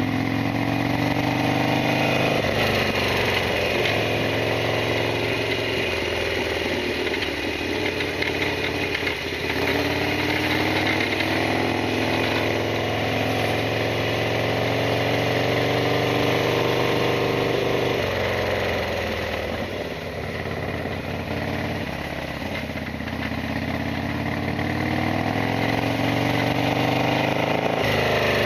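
Harley-Davidson Sportster XL1200R's 1200 cc V-twin engine running under way. Its pitch climbs and then drops back several times as the bike accelerates, shifts or eases off.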